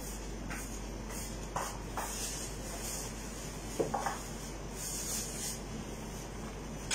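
Rustling and rubbing of plastic-gloved hands spreading chicken filling onto flatbreads, in short bursts, with a few light knocks between about one and a half and four seconds in.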